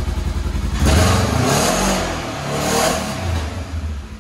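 Polaris RZR 4 side-by-side's engine running and revved up twice, pitch rising and falling each time.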